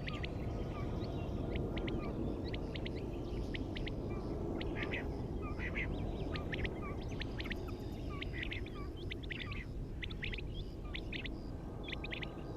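Small birds chirping in quick clusters of short, high calls over a steady low rumble.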